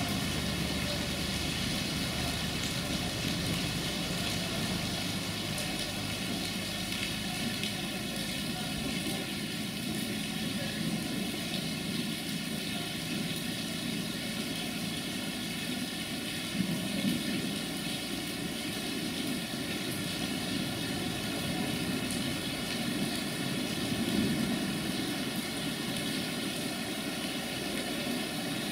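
Diesel engine of a Romanian LVT/LVS 'Ferkeltaxi' two-car railbus droning steadily as the railcar moves off during shunting, under a continuous hiss of heavy rain.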